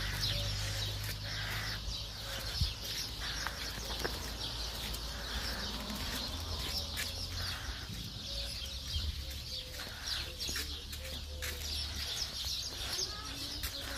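Outdoor ambience of birds chirping in many short, quick calls over a steady low rumble.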